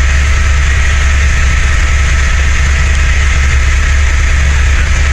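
Helicopter in flight: a loud, steady low drone from the rotor and engine, with a thin steady whine above it.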